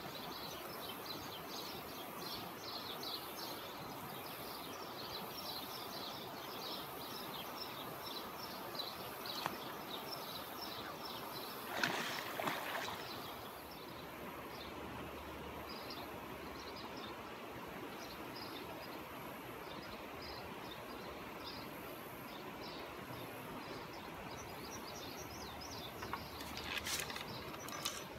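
Riverbank ambience: a steady rush of flowing river water, with birds chirping in rapid short notes for much of the time. There is a brief louder noise about twelve seconds in, and a few sharp clicks near the end.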